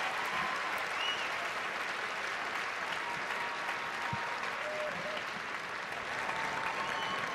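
Large arena crowd applauding steadily, with a few voices calling out above the clapping.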